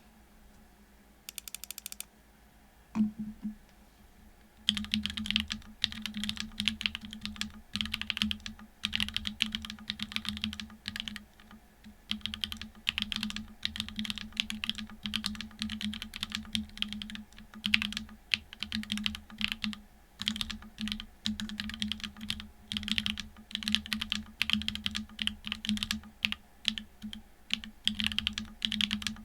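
Typing on a TGR Dolice mechanical keyboard with a carbon-fibre plate and unlubed SW x Gateron Deepping switches (4.0 mm travel). A single thump comes about three seconds in, then rapid, continuous keystrokes from about four and a half seconds on.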